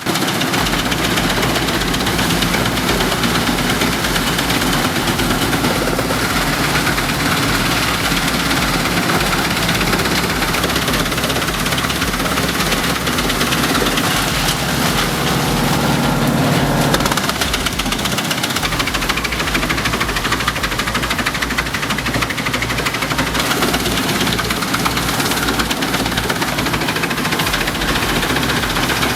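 Large industrial wood chipper running, its engine loud and steady while it works. The sound changes about 17 seconds in.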